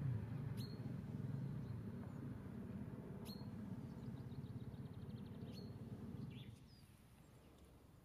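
A low background rumble with a few single sharp, high bird call notes and a short, fast, even ticking trill. The rumble drops away about six and a half seconds in.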